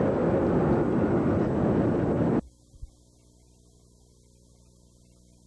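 Steady rushing cabin noise of an airliner in flight, heard at a window seat. It cuts off suddenly about two and a half seconds in, leaving only a faint steady electrical hum with one small thump.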